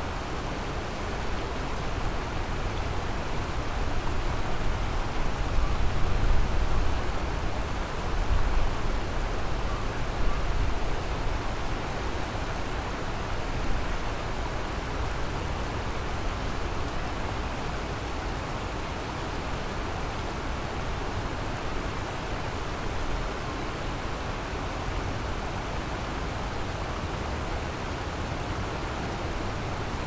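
Kamo River water rushing steadily, an even, wide hiss with a low rumble underneath that swells a little between about four and eleven seconds in.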